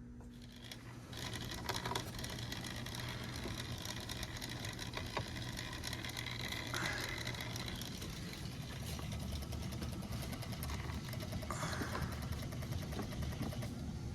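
HVAC equipment starting up about a second in and then running steadily, a mechanical hum with a fast fine ticking over it.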